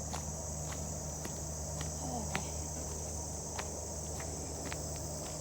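Steady, high-pitched chorus of insects in the woods, unbroken throughout, with light ticks of footsteps on the trail now and then.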